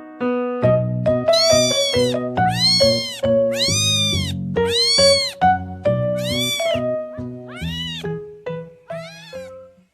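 A cat meowing about seven times, long calls that rise and fall in pitch, starting about a second in and fading toward the end, over background keyboard music.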